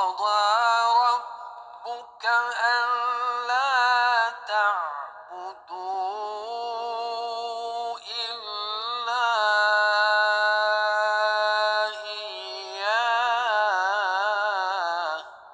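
An unaccompanied solo voice chanting long, ornamented melismatic phrases, with short pauses for breath between them.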